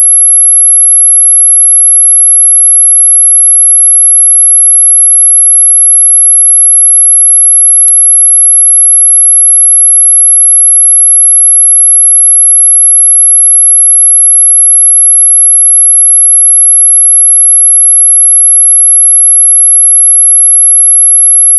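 High-pitched dog whistle sound effect: one steady pure tone, very loud and held without any change in pitch or level.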